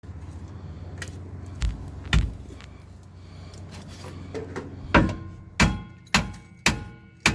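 Hammer striking metal, each blow ringing briefly: two knocks, a pause, then steady blows about two a second. This is the work of driving a stuck part of a truck's driveshaft and carrier bearing assembly loose.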